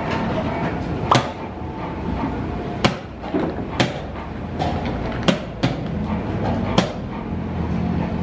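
Wooden chess pieces set down hard on the board and the chess clock being pressed during a fast blitz game: about six sharp knocks, irregularly spaced, over a steady background hum.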